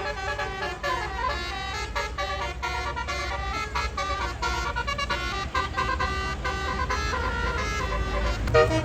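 Tour bus 'basuri' telolet horn playing a quick melody of stepped, many-toned horn notes, with the bus engine running low underneath.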